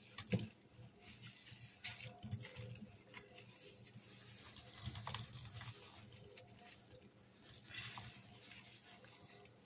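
A wet, soapy scrub sponge squeezed and wrung over and over in a rubber-gloved hand, squelching and crackling with suds and cleaning powder, in irregular bursts with a sharp click about half a second in.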